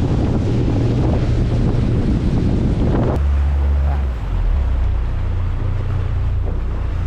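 A boat motor running under way, with wind buffeting the microphone and water rushing past. About three seconds in, the sound changes abruptly to a steadier low hum with less rush.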